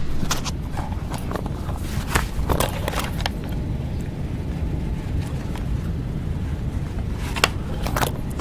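Steady low room rumble with scattered sharp clicks and knocks from handling at a lectern laptop: a cluster a couple of seconds in, and two more near the end.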